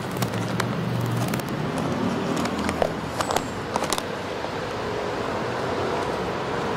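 Sheet of paper crinkling and crackling as it is unwrapped from a bread roll, in two spells of crackles (one just after the start, another around three seconds in), over steady city traffic noise with a low vehicle engine hum near the start.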